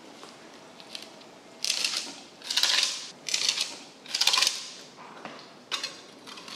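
A knife cutting a giant bluefin tuna along its backbone: about six short scraping strokes, four of them close together in the middle, a nice little noise of a very sharp blade going through the fish.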